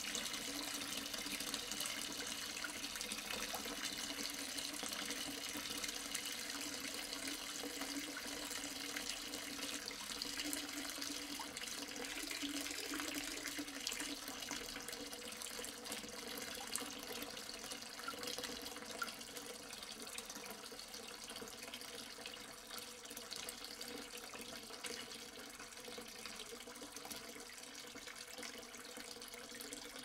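Water pouring into a half-full sink, a steady splashing rush that grows a little quieter and thinner from about halfway through.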